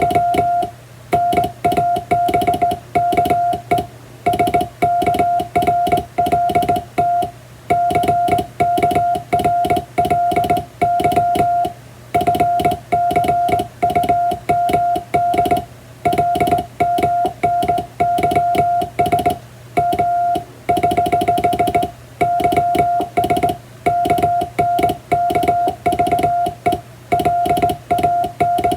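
Morse code sent by hand on a vertical straight key: a steady mid-pitched beep keyed on and off in dots and dashes, with the key's contacts clicking on each stroke.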